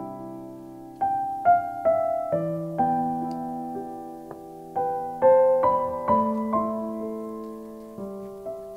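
Background piano music: a slow, gentle piece of chords and melody notes, each struck and left to fade.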